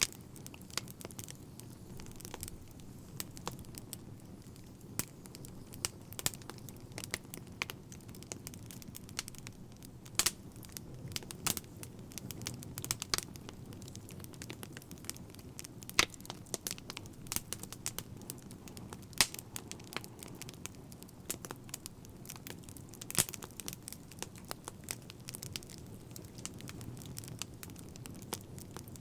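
Wood fire crackling: frequent, irregular sharp pops and snaps, a few much louder than the rest, over a steady low rumble of burning.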